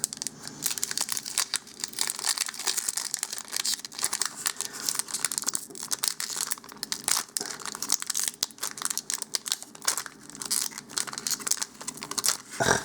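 Foil booster-pack wrappers for Magic: The Gathering cards being torn open and crinkled by hand, with a steady irregular crackle and a sharper rip near the end.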